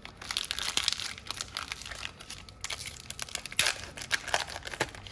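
Crinkling and crackling of plastic trading-card packaging being handled, in irregular bursts with a louder cluster just after the start and another past the midpoint.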